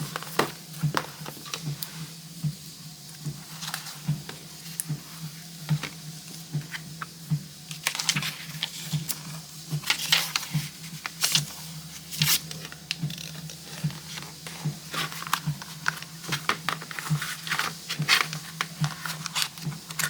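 A leather planner cover and a paper notebook being handled as the notebook is worked into the cover: scattered taps and clicks, with longer rubbing and rustling about halfway through.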